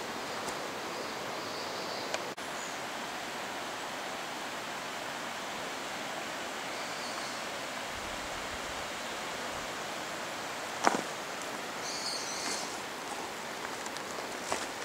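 A mountain stream rushing steadily over rocks in a steep gorge, with a single sharp knock about eleven seconds in.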